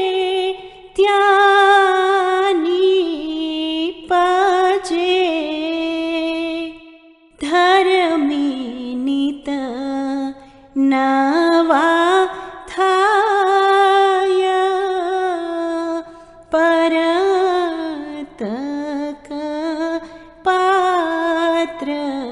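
A woman singing a Gujarati ginan (devotional hymn) in long, drawn-out notes that bend and waver in pitch, the phrases separated by short breaks.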